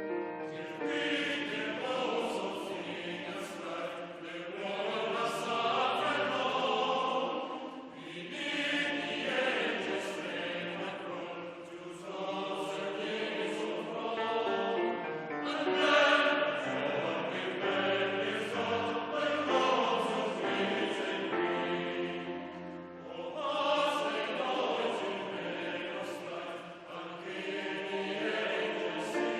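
Classical choral music: a choir singing over an accompaniment.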